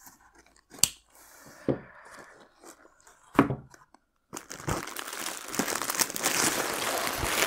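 A cardboard box being cut and torn open, with a few sharp rips and cracks of tape and cardboard. From about four seconds in, a steady crinkling of the plastic wrapping around the package being pulled out of the box.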